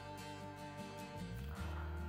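Quiet background music with guitar, its chord changing about one and a half seconds in.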